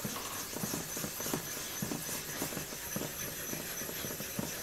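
A Nagura stone being rubbed back and forth over the face of a sharpening whetstone, a quiet run of quick gritty rubbing strokes, as a final cleanup of the stone's surface.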